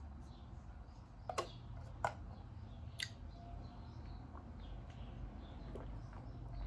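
Three sharp clicks about a second apart from a water bottle's flip-top straw lid being handled and opened, over quiet room tone.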